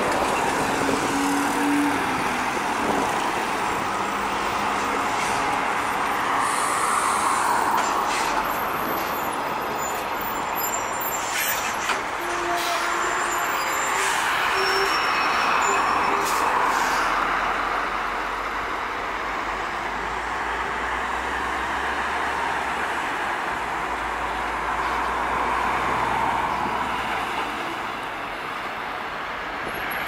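Heavy diesel semi-trucks driving past on a highway, their engine and tyre noise rising and fading as each goes by.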